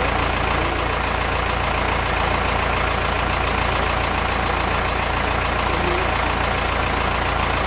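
A steady, unchanging low mechanical drone, like an idling engine.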